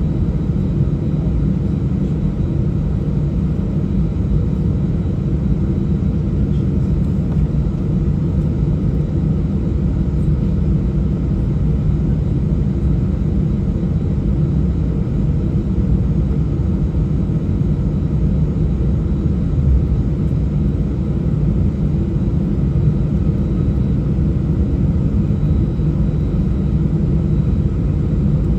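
Steady low roar of an Airbus A319's jet engines and rushing air, heard inside the cabin during the climb after takeoff.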